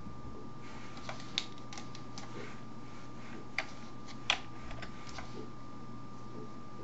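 Sparse, irregular clicks of a computer keyboard, about ten over several seconds, the sharpest a little past the middle, over a faint steady electrical hum and a thin steady whine.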